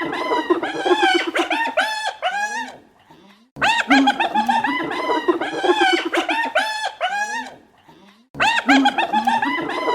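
Spotted hyena laughing: fast runs of high-pitched giggling notes, each rising and falling, in bouts of about three to four seconds with two short pauses between them.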